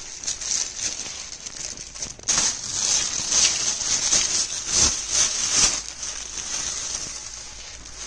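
Plastic wrapping rustling and crinkling as a tripod stand is handled and pulled from its cardboard box, loudest in the middle and softer near the end.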